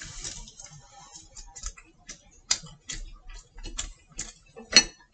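A thin, freshly fried crepe torn apart by hand over a ceramic plate: an irregular run of crackles and light clicks, with a sharper, louder click near the end.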